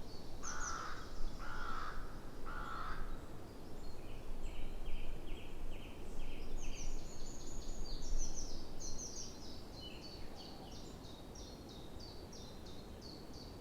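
Springtime birdsong: small songbirds singing runs of rapid repeated high notes throughout, and a crow cawing three times in the first few seconds, over a steady low background rumble.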